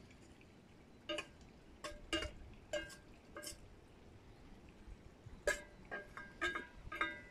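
Small metal bells or chimes ringing faintly in scattered single strikes, in two loose clusters with a pause of about two seconds between them.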